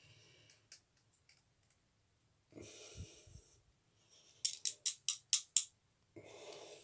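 Alum block rubbed over freshly shaved skin in quick short strokes, making a run of about seven sharp scratchy clicks past the middle, with soft breaths through the nose before and after.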